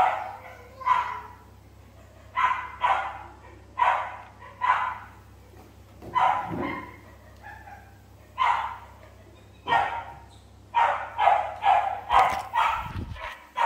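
Dog barking: a long string of short barks with pauses between them, then a quicker run of barks near the end.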